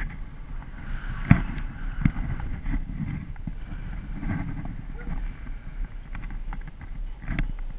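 Low rumbling noise, like wind buffeting the microphone, with faint indistinct voices and a few sharp knocks, the loudest about a second in.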